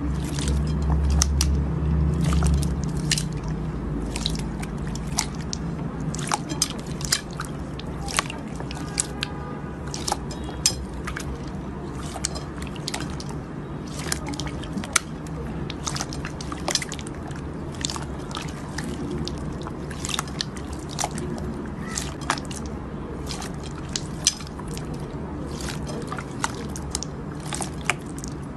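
Slime being squeezed and kneaded by hand: wet squishing with many irregular sharp clicks and pops of trapped air.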